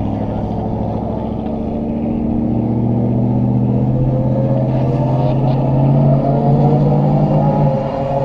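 A hi-rail pickup truck running along the rails on its guide wheels, approaching and passing close by, its engine drone joined by a whine that rises slowly in pitch as it nears, over a steady low engine drone.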